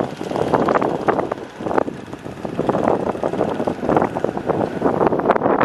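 Tractor engine running as it pulls a heavily loaded sugarcane trolley, with a motorcycle passing close toward the end, all under gusty wind buffeting the microphone.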